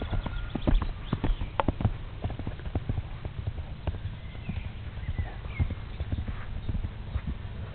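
Hoofbeats of a Frederiksborg horse cantering over turf: a quick, uneven run of thuds, loudest in the first two seconds.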